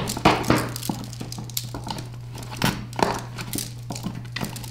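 Metal folding chair rattling and creaking in irregular knocks and clicks as the person sitting on it shakes hard, gripping the seat edges. A steady low hum runs underneath.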